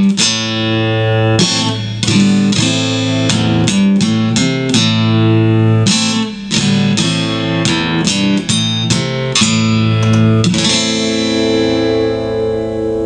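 Guitar playing the instrumental close of a slow blues song: a run of picked notes and chords, then a last chord about ten and a half seconds in that is left to ring and slowly fade.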